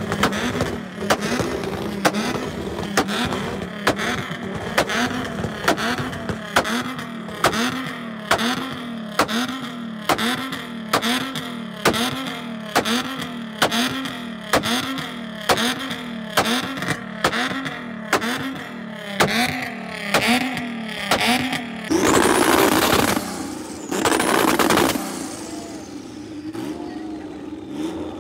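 A car doing donuts, its engine held at high revs with the tyres sliding. The sound swells and fades about once a second as the car circles. Near the end come two louder bursts of revving.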